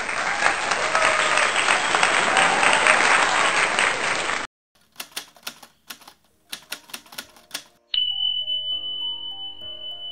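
Video intro sound effects. First a loud, dense noise for about four and a half seconds that cuts off suddenly. Then a run of typewriter-like clicks. About two seconds before the end, a steady high beep begins with a short electronic melody under it.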